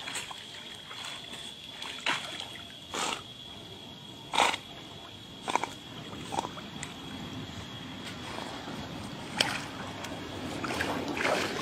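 Water sloshing and splashing as a man and a dog swim and wade in a pond, with short separate splashes every second or two and a busier burst of splashing near the end as the dog climbs out onto the bank.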